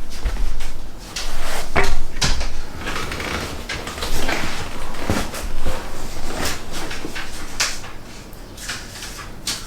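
A run of light knocks, clicks and rustles of objects being handled, busier in the first half and trailing off towards the end.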